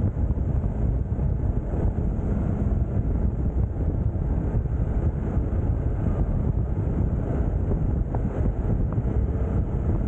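Steady low wind rumble on the microphone of a camera on a moving motorcycle, with the TVS Apache RR310's engine running underneath.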